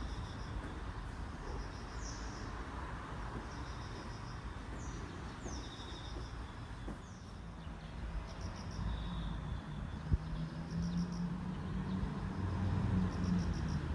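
Insects chirping in short, repeated trills over steady background noise; a low hum builds from about eight seconds in.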